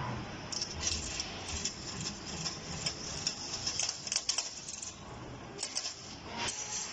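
CNC wire-bending machine working, its bending head and wire feed giving off quick, irregular metallic clicks and rattles as the steel wire is fed and bent.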